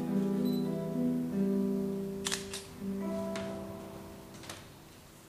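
Final bars of a slow instrumental piece on guitar: a few long held notes that die away into quiet near the end, with a couple of faint clicks about two seconds in.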